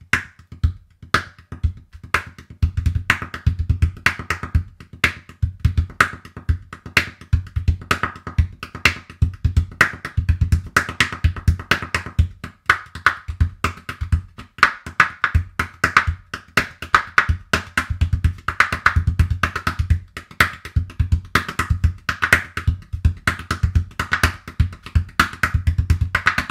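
A calabash, a large dried gourd, played with bare hands at a fast tempo. Deep bass thumps mix with sharper, brighter slaps in a dense, continuous pattern. A few spaced strokes open it, and the pattern thickens about two seconds in.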